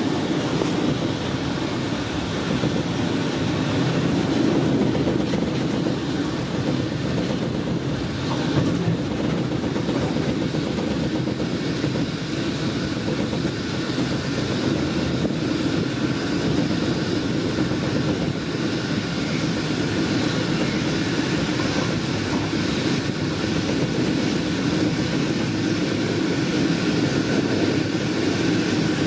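Regional express train of n-Wagen coaches running at speed: a steady rumble of wheels on the rails.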